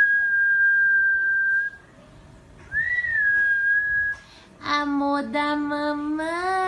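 A person whistling two long held notes, each starting with a short upward swoop. It is followed by a long held voice note that rises slightly in pitch near the end.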